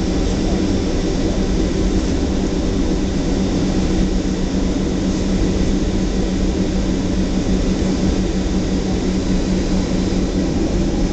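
Boeing 737-800's CFM56-7B turbofan engines running steadily at takeoff thrust during the takeoff roll, heard from inside the cabin beside the engine. It is a loud, even rush with a constant low hum beneath it.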